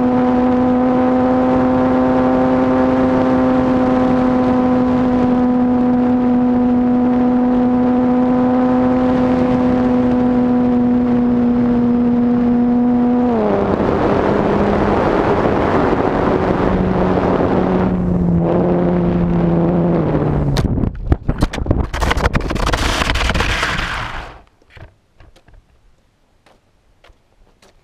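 Electric motor and propeller of a small foam RC plane, heard from the plane's own camera: a steady whine under power that drops in pitch about 13 seconds in as the throttle comes back, then steps lower twice more. Near the end comes a few seconds of loud rough scraping and rushing as the plane touches down and slides on asphalt; it cuts off suddenly, leaving only faint ticks.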